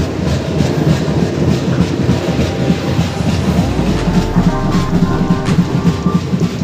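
Fast, dense drumming from the street festival. About three and a half seconds in, a melody of held, sliding pitched notes joins over the drums.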